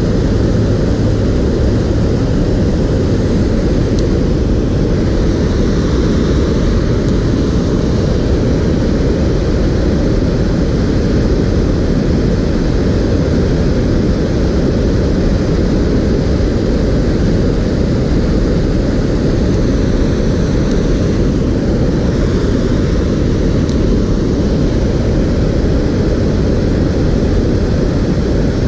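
Water pouring over a low weir on a creek, a loud, steady, low rush with no breaks.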